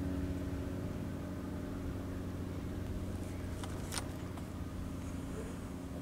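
Diesel railcar's engine running with a steady low drone as it approaches along the narrow-gauge track, with a sharp click about four seconds in.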